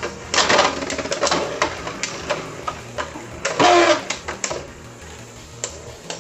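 Beyblade spinning tops clashing in a plastic stadium: irregular sharp clicks and knocks, with a louder grinding scrape about three and a half seconds in.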